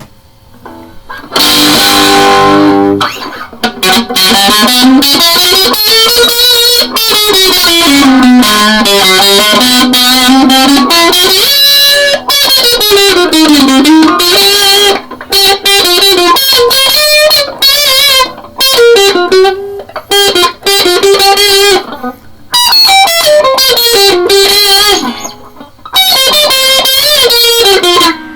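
Stratocaster electric guitar played through a Boss Metal Zone distortion pedal on its heavy setting: a single lead line of long sustained notes with wide string bends, starting about a second and a half in, with a couple of short breaks near the end.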